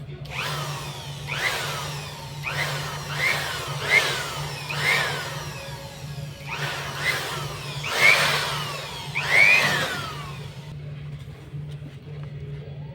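Repeated short blasts of air, about nine in a row, blown into a dusty laptop cooling fan during cleaning. Each blast carries a whine that rises briefly and then falls.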